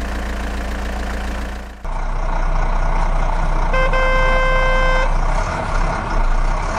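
Truck engine sound effect running steadily, switching abruptly to a louder engine sound about two seconds in; near the middle a truck horn blows once, one steady blast of just over a second.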